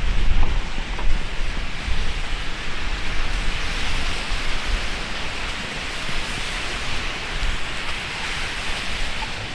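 Heavy rain falling and splashing, a steady hiss, over a low rumble that is heavier in the first couple of seconds.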